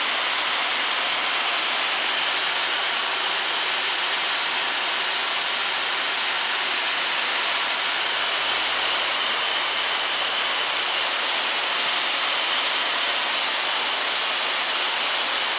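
Steady rushing air noise on the flight deck of a Boeing 737-800 in flight, even and unchanging.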